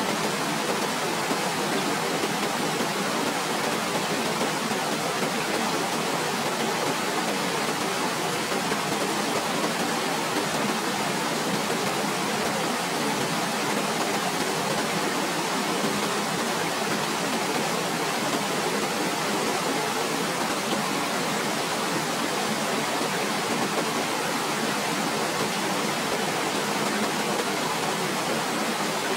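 Waterfall rushing steadily: an even, unbroken wash of falling water that does not change.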